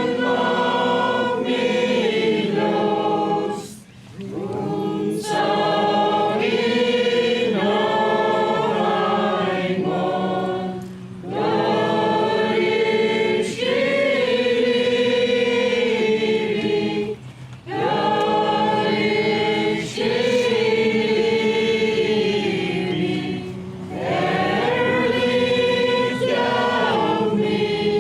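A choir singing, in long held phrases with short breaks between them about every six or seven seconds.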